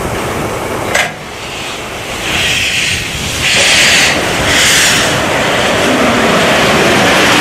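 Narrow-gauge steam locomotive blowing off steam: a sharp click, then three short bursts of steam hiss, then a steady hiss.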